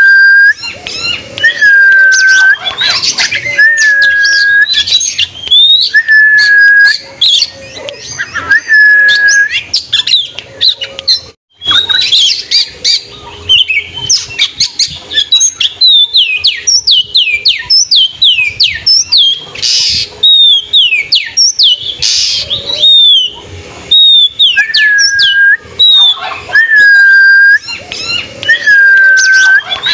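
Oriental magpie-robin (kacer) singing loudly. A clear, level whistle recurs every second or two, mixed with rapid runs of high, falling notes, with a short break about eleven seconds in.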